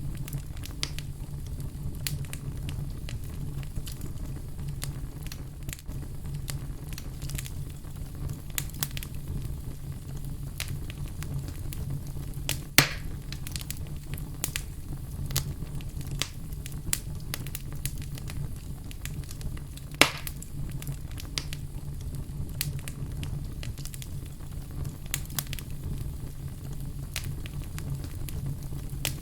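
Fire crackling in a fireplace: a steady low rumble of flames with frequent small crackles and pops, and two louder pops, one about halfway through and one about two-thirds through.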